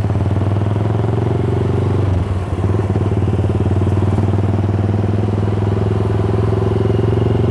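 Yamaha Scorpio's single-cylinder four-stroke engine running at a steady cruise under way, with a brief dip in the engine note about two seconds in.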